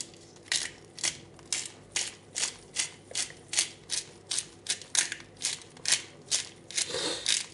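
Hand-twisted pepper mill grinding a peppercorn mix: a dry crunching rasp with each twist, about two to three twists a second, evenly and without a break.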